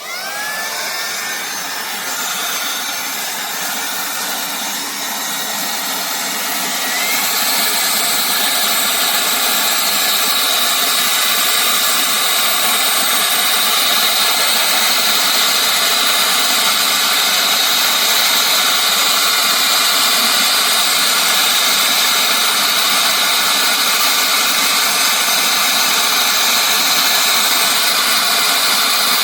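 Higoom cordless handheld vacuum's high-speed motor switching on and whining up to speed. About seven seconds in it steps up, louder and higher, then runs steadily with a high-pitched whine.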